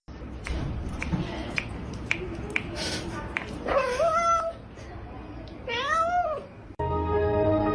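A cat meowing twice, two drawn-out calls about two seconds apart, the second arching up and back down in pitch. Several sharp light clicks come before the meows.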